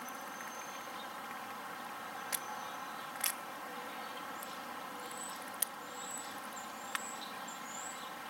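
Wild rabbit biting into a hard candy cane, giving four sharp cracks about two and a half, three and a quarter, five and a half and seven seconds in, over a steady hiss. The cracks are hard enough to sound like breaking a tooth.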